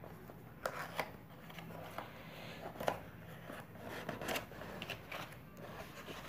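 Cardboard box being opened by hand: a faint rustle and scrape with a few short clicks and taps as the box slides out of its sleeve and the lid is lifted.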